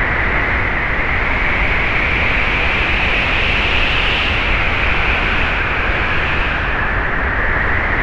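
Wind sound effect: a loud, steady rushing hiss with no gusts, strongest in a high band over a low rumble.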